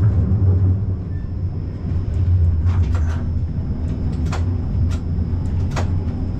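A GVB Siemens Combino tram's steady low hum and rumble, with several short sharp clicks spread through its second half and a faint high-pitched whine throughout.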